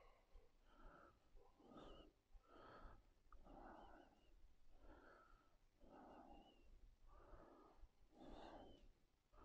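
Faint, hard breathing, about one breath a second, from a lifter pressing through a set of barbell bench press repetitions.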